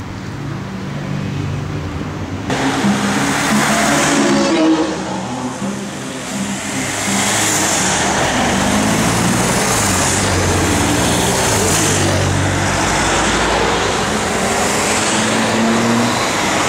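Convoy cars and a motorcycle driving past on the road, with engine and tyre noise, one engine rising in pitch near the end. Wind buffets the microphone for the first couple of seconds, before the traffic sound starts abruptly.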